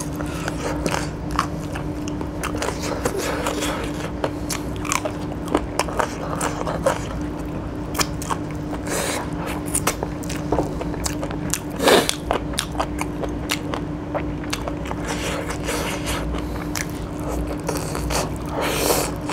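Biting and chewing chicken pieces in curry, eaten by hand: irregular wet smacks and small crunches, with a louder one about twelve seconds in, over a steady faint hum.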